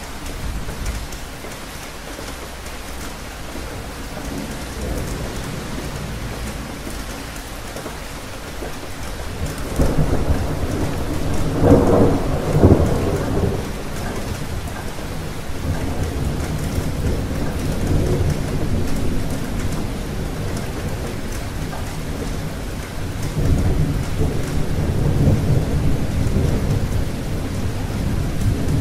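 Steady rain falling, with rolling thunder. A low rumble builds about ten seconds in and peaks a couple of seconds later, then more rumbles roll on through the second half.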